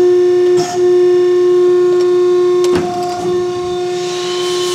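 Press brake running with a steady, loud mechanical hum, with two short clicks as the ram is jogged in slow manual mode to bend a stainless steel bracket a little further against its spring-back. A hiss builds near the end.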